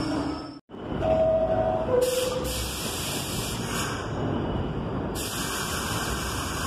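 An R62A subway car standing at the platform sounds its two-tone door chime, a higher tone then a lower one, over a steady rumble. Bursts of hissing air follow. Just before the chime the sound of a moving train cuts off abruptly.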